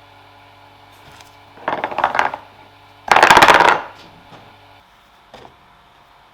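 Small metal parts clattering in two short rattling bursts, the second louder, then a faint tick.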